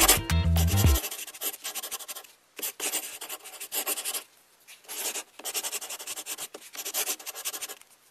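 Black whiteboard marker drawn across paper in irregular strokes with short pauses, inking over pencil lines. A music track plays underneath for about the first second, then stops.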